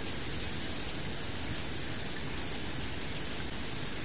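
Insects trilling steadily in riverside vegetation, with a high, thin buzz that grows louder for a couple of seconds in the middle and breaks off in a few short pulses.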